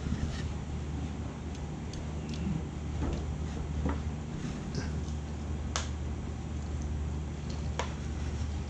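Scattered light clicks and taps of small parts being handled while a piece is fitted into a groove inside a magnetic compass, the sharpest about six and eight seconds in. A steady low hum runs underneath.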